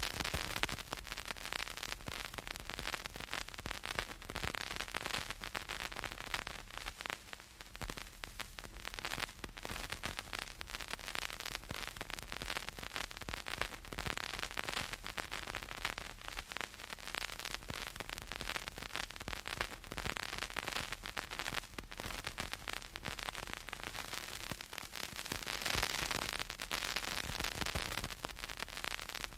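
Vinyl LP surface noise: dense crackle and pops over a steady hiss, the sound of a stylus riding the groove with no music playing.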